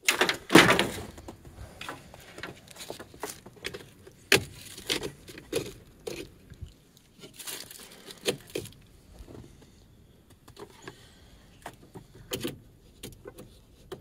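Irregular clicks, knocks and rustles of a portable jump starter's clamps being handled and clipped onto a truck battery's terminals, with a louder rustle about half a second in.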